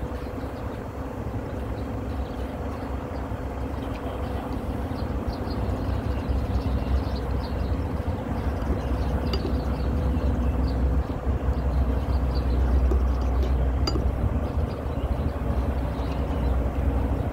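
Steady low mechanical rumble with a constant hum, growing louder over the first half, with faint small clicks scattered through it.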